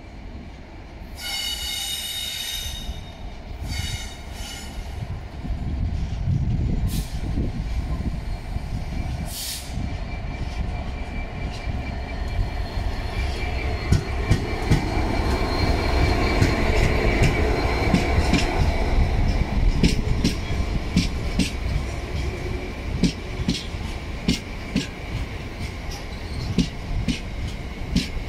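GB Railfreight Class 66 diesel locomotive, with its EMD two-stroke V12 engine, passing through a station hauling loaded hopper wagons: two high-pitched squeals about a second in and about four seconds in, then the engine's rumble building as the locomotive draws alongside. As the wagons roll by, their wheels click steadily over rail joints.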